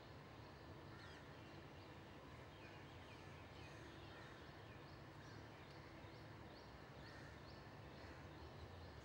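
Faint, quiet background hiss with short, high chirps from a small bird, each sliding downward. A few are scattered at first, then about five seconds in comes an even run of two or three a second.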